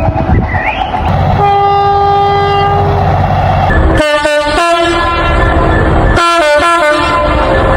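Train horn sounding a chord of several notes: one long blast, then a run of short and long blasts, over the heavy rumble of a moving train.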